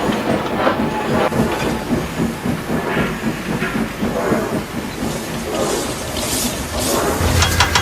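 Dubbed train sound effect: a train running along the track with irregular rail clatter and hiss. Near the end a steady low engine drone with fast, even beats cuts in.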